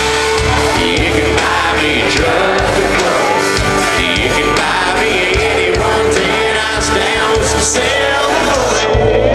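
Live country band playing loud through a concert PA, recorded from the audience, with drums, bass and guitar and a long held note in the middle.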